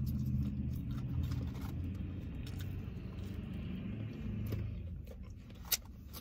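Low steady hum of a car idling, heard from inside the cabin, with scattered small clicks and rustles from eating out of foil wrappers. The hum fades about five seconds in, and there is one sharp click near the end.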